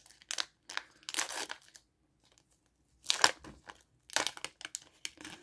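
Foil Pokémon booster pack wrapper crinkling and tearing as it is opened by hand, in several short bursts with a brief pause about two seconds in.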